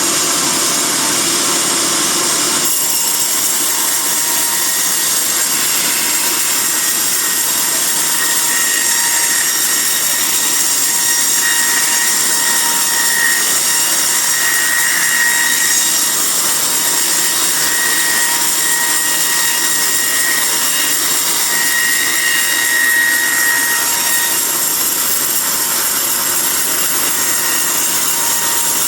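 Sawmill band saw running steadily under load, its blade cutting lengthwise through a teak log. The sound changes character about three seconds in, and a faint whine comes and goes in the middle.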